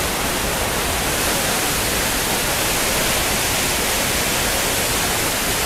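Waterfall falling into a rock pool: a steady, unbroken rush of water.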